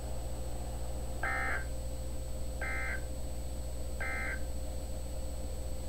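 Emergency Alert System end-of-message data bursts: three short warbling digital chirps, about a third of a second each and spaced about 1.4 seconds apart, signalling the end of the alert. A steady low hum runs underneath.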